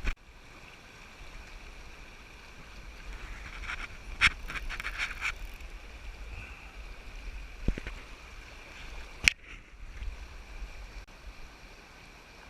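Stream water rushing steadily over riffles, with wind rumbling on the microphone and a few sharp clicks or knocks, several close together about four to five seconds in and single ones later.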